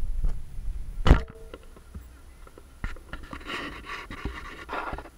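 Handling noise from a helmet-mounted action camera: a knock at the start and a louder knock about a second in as a hand covers and moves the camera. This is followed near the end by a couple of seconds of rough, hissing noise.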